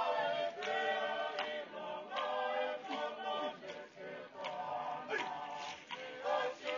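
A group of voices singing together in harmony, a choir holding notes that shift every half second or so, with no instruments standing out.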